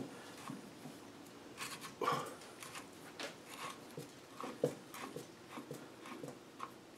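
Faint scattered clicks and light knocks of metal parts being handled by hand inside a Land Rover Defender differential housing, the sharpest knock about two-thirds of the way through.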